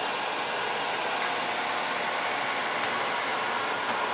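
Small electric blower running, a steady rushing of air.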